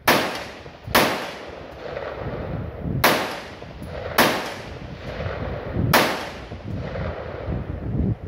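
Five AR-15 rifle shots at uneven intervals, roughly one and two seconds apart, each a sharp crack followed by a short echo.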